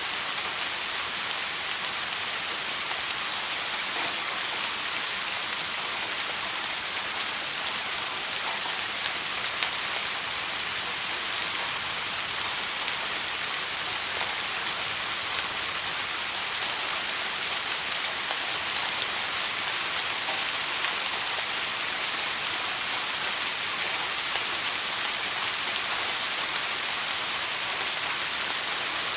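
Steady soft rain falling: an even hiss sprinkled with fine, scattered drop ticks.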